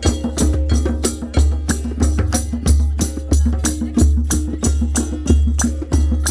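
Oriental-style folk music played live: hand percussion keeps a quick, steady beat of sharp strikes over a deep bass pulse, with a pitched instrument holding a melody.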